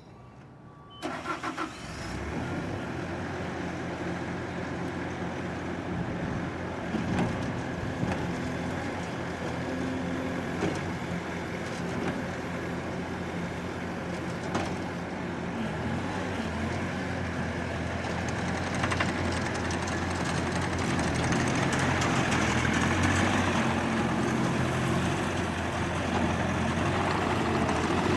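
Bobcat T590 skid steer's diesel engine starting about a second in, then running steadily, growing gradually louder through the last third.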